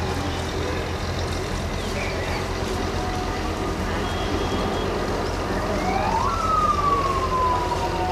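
Steady low motor rumble. About six seconds in, a siren-like wail rises briefly and then falls slowly.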